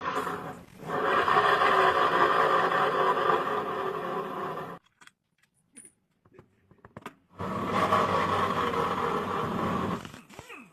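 Honda Vario 150 scooter engine running with a rough, rattling 'ngorok' (snoring) noise, the abnormal engine noise that calls for a teardown. It runs in two stretches of about four and three seconds, each cut off abruptly, with a few faint clicks in the gap between.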